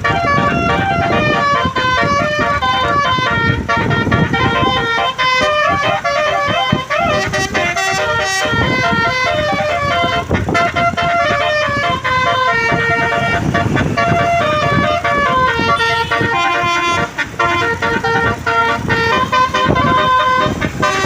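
Basuri 12 telolet bus horn playing a melody: a run of steady horn notes stepping from pitch to pitch without a break, with a low rumble underneath.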